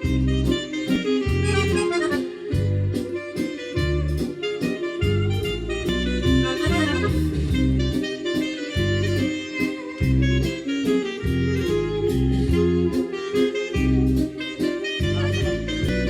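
Instrumental mazurka dance music: a melody line over a steady, regularly repeating bass accompaniment.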